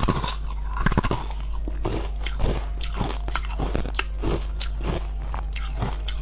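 Close-up crunching and chewing of pieces of frozen red-coloured ice: hard bites crack the ice, followed by a steady run of chewing crunches, two or three a second.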